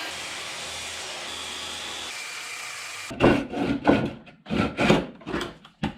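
A saw cutting into a green quarter-sawn oak board. A steady rushing noise runs for about three seconds, then several loud, rough cutting strokes follow.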